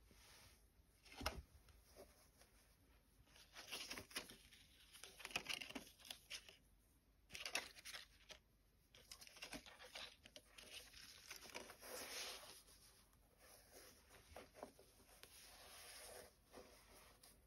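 Faint rustling and scratching of cotton-gloved hands handling Adidas Yeezy Boost 700 V2 sneakers and their paper hang tags, in uneven bursts with a few light taps.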